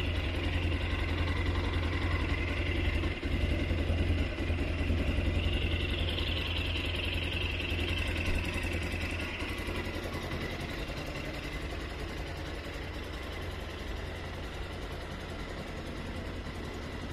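Avantis MT250's air-cooled 250 cc Zongshen 172FMM single-cylinder four-stroke engine idling steadily, growing somewhat quieter about ten seconds in.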